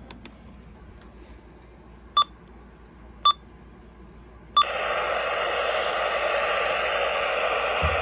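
A radio receiver after the voice broadcast has stopped: faint hiss, two short sharp beeps about a second apart, then a click and steady static hiss, much louder, from about four and a half seconds in.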